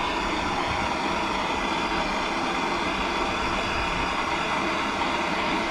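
A larger power tool running steadily under load, a continuous motor noise with a faint steady whine in it.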